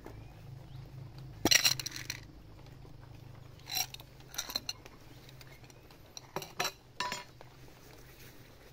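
Silenced air rifle firing once about a second and a half in, a sharp crack with a short ringing tail, followed by several lighter metallic clicks between about four and seven seconds in.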